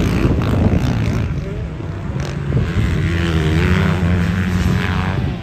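Motocross bike engine revving on the track, its pitch rising and falling as the rider works the throttle through the gears.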